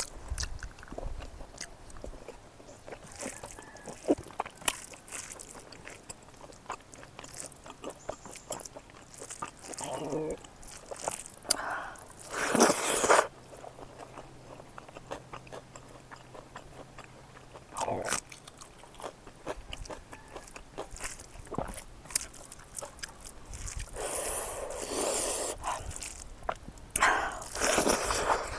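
Close-miked eating: biting and chewing of smoked pork fat cooked with perilla seeds, with soft crunches and clicks from the mouth. A few louder, longer bursts of mouth noise come about twelve seconds in and near the end.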